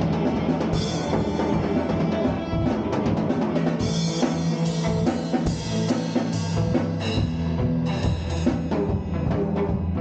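Live rock band playing: a drum kit with repeated cymbal and drum hits over sustained low electric guitar notes.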